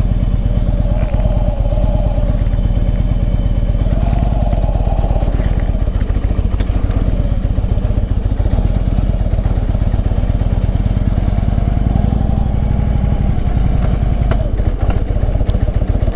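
Harley-Davidson Road King's V-twin engine running while the sidecar combination is under way, a steady low rumble of rapid firing pulses.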